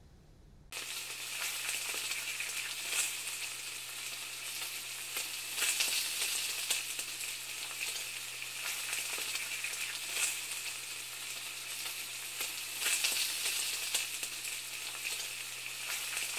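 Food frying: a steady sizzle with crackles that starts suddenly under a second in, over a low steady hum.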